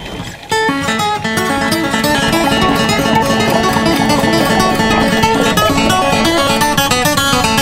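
Background music: a sung folk song's instrumental passage, led by guitar, with no singing in this stretch.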